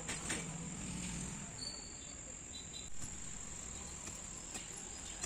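Crickets trilling steadily in a high, unbroken chorus. A few dull knocks of a long digging bar breaking garden soil sound now and then.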